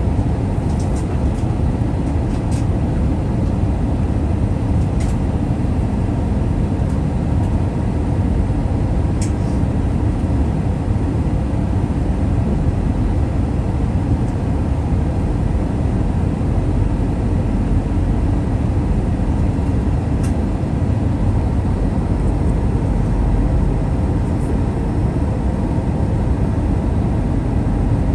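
Steady cabin noise inside an Airbus A321-200 airliner in flight: an even low rumble of airflow and engines, with a few faint light ticks.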